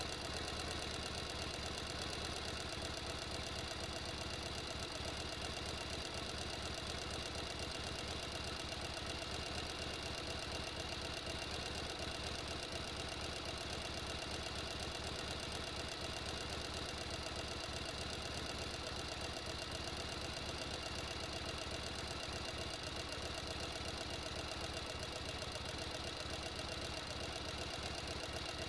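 Sewing machine running steadily at speed, a fast, even mechanical rattle of stitching that doesn't pause.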